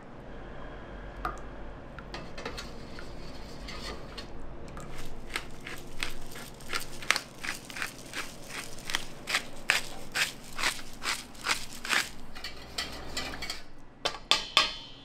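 A quick run of crisp crunching or cutting strokes during kitchen food prep, about two to three a second for most of the stretch, over a steady low hum.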